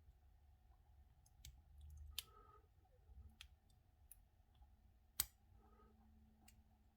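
Faint, irregular clicks of a lock pick and tension wrench working in the keyway of a brass pin-tumbler padlock, about six in all, the loudest about five seconds in.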